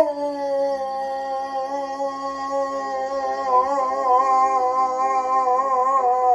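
Dog howling one long, unbroken note that wavers slightly in pitch, howling along to a song.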